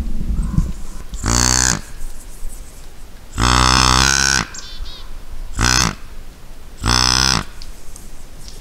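Deer grunt calls made by a hunter to draw a doe back into view: four short, low, buzzy grunts, the second the longest.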